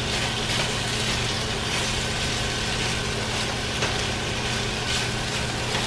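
Diced potatoes sizzling as they fry in steak drippings in a skillet, stirred with a silicone spatula that gives a few light scrapes. A steady low hum runs underneath.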